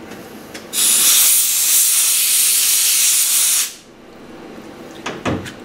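Compressed-air blow gun blasting a steady hiss for about three seconds, blowing chips off the milled parts and the vise, then cut off sharply. A short knock near the end.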